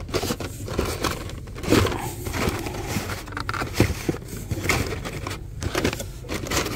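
Blister-carded diecast cars being handled and shuffled through: irregular plastic clicks and card-and-plastic rustling.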